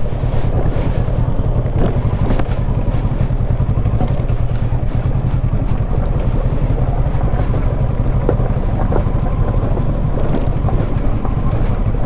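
Kawasaki Versys 650's parallel-twin engine running steadily as the motorcycle is ridden slowly along a cobbled and dirt track.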